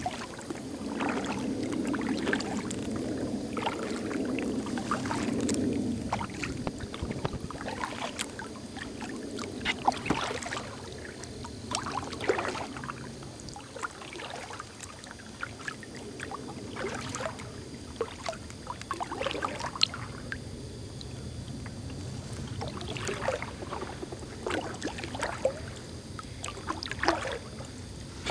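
Kayak paddling: the paddle blades dip and pull, with water splashing and trickling off them in irregular strokes every second or two. A low steady rush of water runs under the first few seconds.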